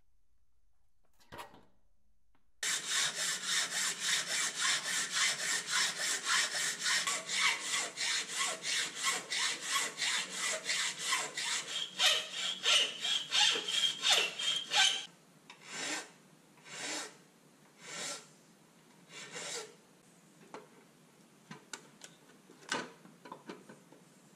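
Hand hacksaw cutting with fast back-and-forth strokes, about four a second, starting a couple of seconds in. At about 15 s it slows to a handful of separate, slower strokes, and near the end there are a few light clicks.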